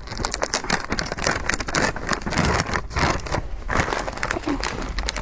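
A large zip-lock plastic bag of snack chips being pulled open at its seal and handled, the plastic crinkling and crackling densely throughout.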